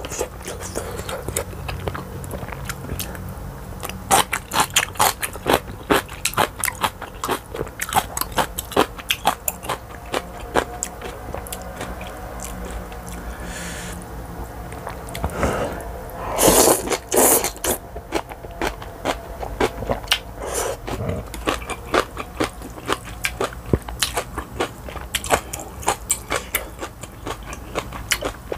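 Close-miked eating sounds: chewing instant ramen noodles and kimchi, with quick irregular wet smacks and clicks. About halfway through comes one longer, louder slurp of noodles.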